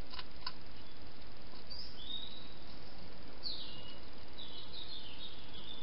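A songbird singing short, gliding phrases three times over a steady hiss, with a few sharp clicks at the very start.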